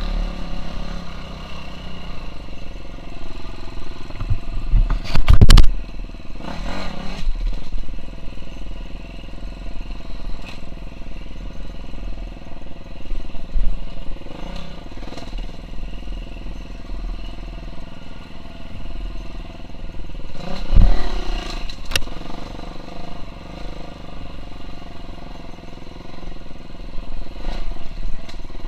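KTM 350 SX-F's four-stroke single-cylinder engine running as the bike is ridden over a forest trail. The engine runs steadily, with two loud sudden thumps, about five seconds in and again about twenty-one seconds in.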